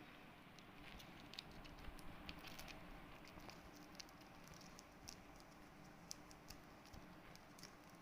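Faint rustling and scattered small clicks of hands handling a piece of rope and tying it around a person's wrist, busiest in the first few seconds.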